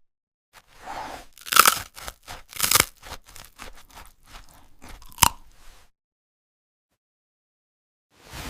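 Close-up crunching and chewing of a crisp cookie, a cat's snack: a run of bites and chews with three sharp, loud crunches. It then stops dead for a couple of seconds before starting again near the end.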